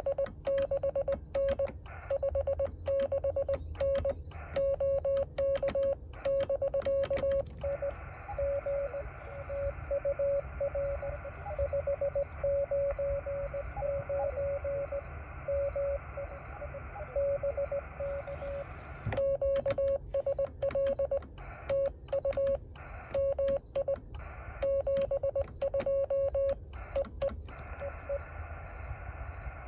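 Yaesu FT-817 in a Morse code exchange. The radio's loud CW sidetone and sharp clicks mark the operator's own sending for the first seven seconds or so. Then a weaker reply in Morse comes through receiver hiss until about two-thirds of the way in, and the loud clicked sending resumes near the end.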